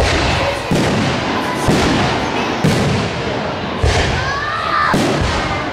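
Fireworks display: a series of loud bangs roughly a second apart, over a continuous crackling haze.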